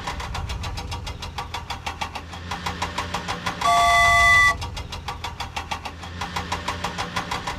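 Cartoon vehicle engine sound effect chugging in a fast, even rhythm. A single horn blast of about a second comes near the middle and is the loudest sound.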